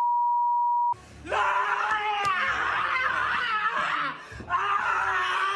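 A steady beep tone for about a second, then a woman screaming and wailing in high, wavering cries, with a short break about four seconds in.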